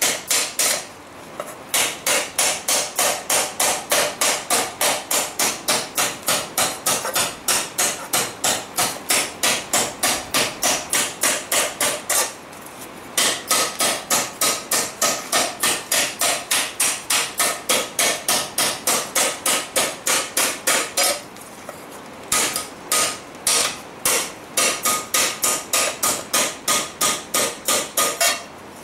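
Hand hammer beating a forged steel pan cold over a rounded stake: quick, even blows at about four a second with a faint metallic ring, stopping briefly about a second in, about twelve seconds in, about twenty-one seconds in and near the end. This is cold work to shape the pan's dished body.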